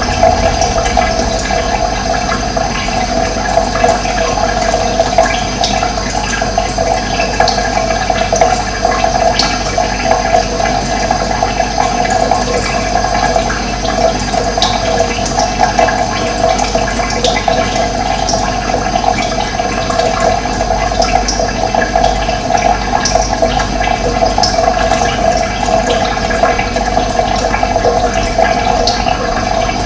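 Running water flowing steadily, an even rushing sound, with short high bird calls scattered through it.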